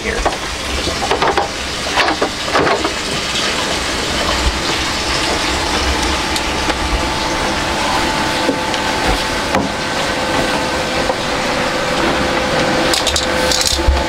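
A fibreglass deck hatch being lifted open, with a few knocks in the first three seconds, over a steady rushing noise carrying a faint hum.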